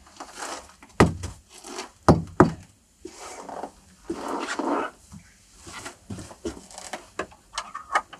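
Wooden objects being handled: a few heavy knocks on wood, two of them close together, among rustling and clatter, with a scraping rustle lasting about a second midway.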